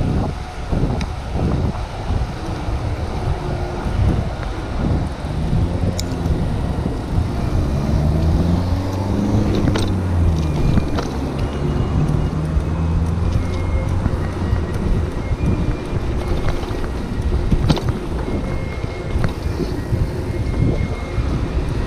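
Wind rushing over a chest-mounted action camera's microphone on a moving bicycle, with traffic noise and a motor vehicle's engine rising and falling in pitch around the middle, and a few sharp clicks.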